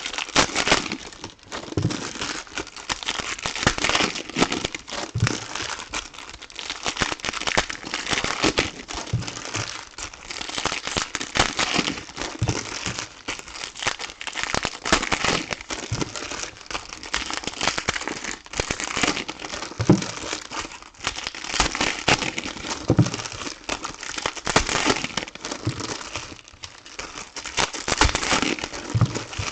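Plastic wrapping crinkling and crumpling with dense, irregular crackles as a sealed trading card box and its packs are unwrapped by hand, with a few dull knocks of handling.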